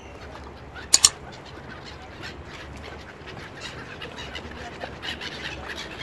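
A flock of gulls calling, many short cries overlapping. About a second in, a sharp double mouse-click sound effect, the loudest sound here.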